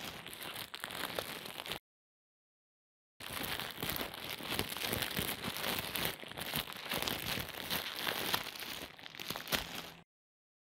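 A crinkling, crackling sound effect. It comes in two stretches: the first cuts off abruptly about two seconds in, and after about a second and a half of dead silence a longer stretch of about seven seconds starts and stops just as abruptly.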